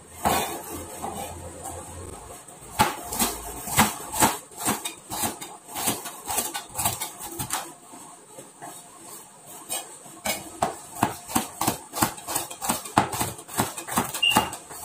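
Kitchen knife slicing garlic and shallots on a plastic cutting board: a series of sharp chopping taps, scattered and uneven at first, then a quick steady run of about three to four taps a second over the last few seconds.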